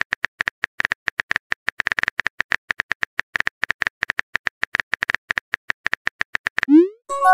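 Simulated smartphone keyboard tap sounds of a texting-story animation: rapid, fairly even clicks at about eight to ten a second. Near the end a short rising pop and a brief chime sound as the typed message is sent.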